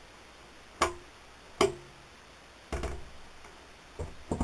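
Plastic childproof cabinet latch clicking as it is pressed and released: two sharp clicks with brief ringing, then a duller knock as the wooden cabinet door closes, and a couple of softer clicks near the end.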